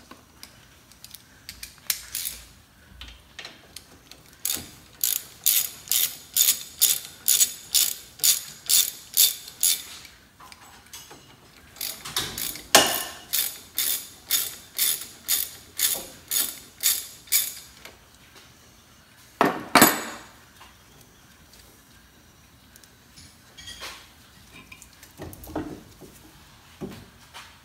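Half-inch-drive ratchet with an 18 mm socket spinning out the front brake caliper bracket bolts: two runs of quick, even ratchet strokes, two or three a second, with a short pause between them. A single loud metallic knock follows about twenty seconds in, then a few light handling clicks.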